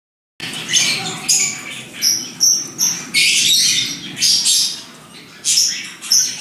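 A flock of small parrots, budgerigars and lovebirds, squawking and chattering in a quick run of loud, shrill calls that starts after a moment of silence.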